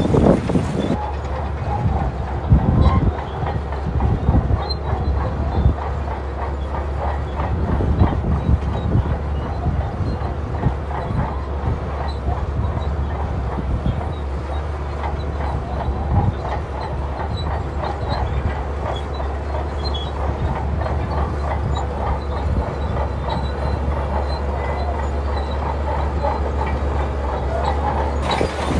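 Crawler bulldozer's diesel engine running steadily under load, with the continuous clanking rattle of its steel tracks.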